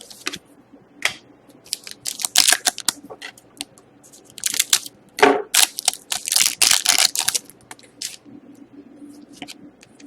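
Trading cards being handled and slid through a pack: crisp clicks and rustles of card stock in short bursts, busiest about two seconds in and again from about four to seven seconds in.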